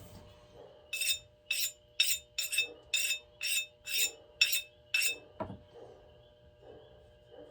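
Hand sharpening stone worked in quick strokes across the steel bit of a splitting axe, about nine short scraping strokes at roughly two a second, each with a slight metallic ring, honing off the burr left by grinding. A dull knock follows shortly after the strokes stop.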